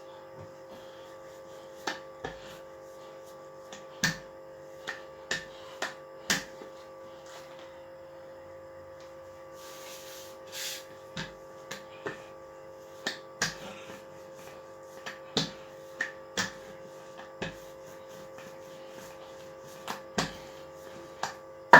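Scattered light taps, clicks and knocks of hands and utensils on a kitchen counter while puff pastry is handled and prepared for cutting, over a steady electrical hum, with a brief rustle about ten seconds in.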